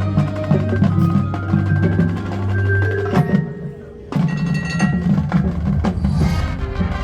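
High school marching band playing its field show music, with mallet and drum percussion prominent over a sustained low note. A little past halfway the sound drops away briefly, then the full band comes back in on a sharp hit.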